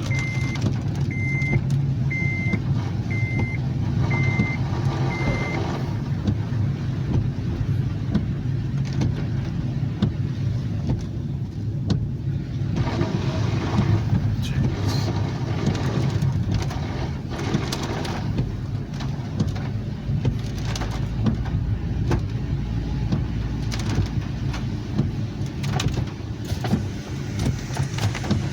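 Steady road and engine rumble inside a moving car. In the first few seconds it is joined by six short electronic beeps at one pitch, about one a second.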